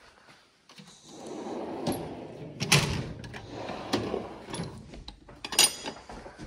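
Steel roll-cab tool chest drawers sliding open and shut on their runners, with several sharp metal clanks, the loudest about three seconds in and again near the end.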